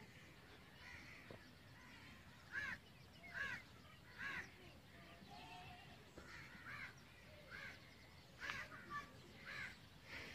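Crows cawing: a string of short, harsh caws repeated about every second, starting about two and a half seconds in, over a faint outdoor background.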